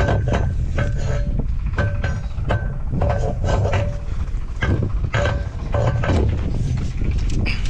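Metal-on-metal strikes on a steel rebar rod being bent into a crank handle, irregular blows about one or two a second, each with a short ringing clang. Heavy wind noise on the microphone underneath.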